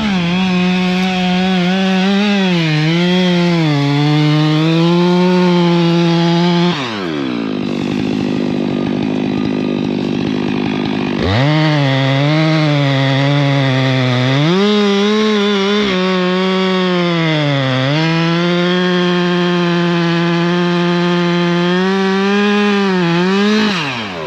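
Gas chainsaw at full throttle cutting through wood, its pitch sagging as the chain bites. It drops to idle about a third of the way in, revs back up and cuts again, then lets off near the end.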